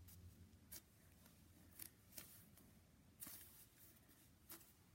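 Near silence with a handful of faint, short clicks and rustles from hands handling a foam squishy toy.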